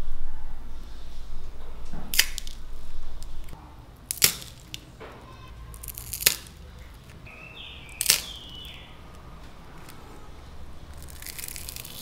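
Crisp, hollow fried potato balls crackling as they are handled and squeezed between the fingers: four sharp cracks about two seconds apart, then a longer crackle near the end as one is torn open. A low rumble runs under the first few seconds.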